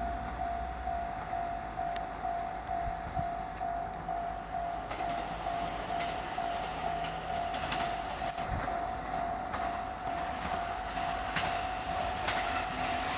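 Level-crossing warning bell ringing with one steady tone as a JR East GV-E400 diesel-electric railcar draws near. Its wheels click over the rail joints, the clicks coming more often toward the end.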